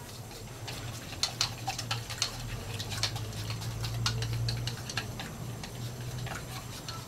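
Wooden chopsticks stirring in a ceramic bowl, clicking against its sides in quick, irregular taps.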